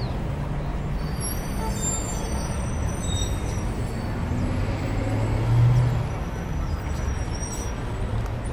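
Wind buffeting the microphone: a steady low rumble that swells in a stronger gust about five and a half seconds in, with a few faint high chirps in the first few seconds.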